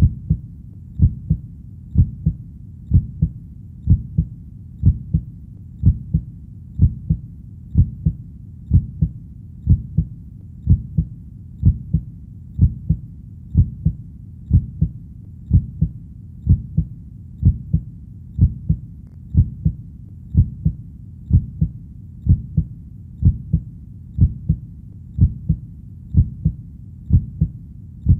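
Heartbeat sound: steady lub-dub pairs of low, dull thuds at about one beat a second (around 60 beats a minute), over a faint low background.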